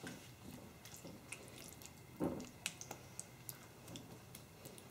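Wooden spoon spreading thick, creamy chicken-and-vegetable filling in a glass casserole dish: faint wet squishing with scattered light clicks, one a little louder about two seconds in.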